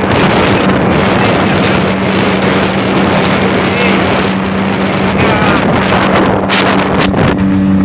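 Speedboat engine running at speed with a steady hum, under wind noise on the microphone.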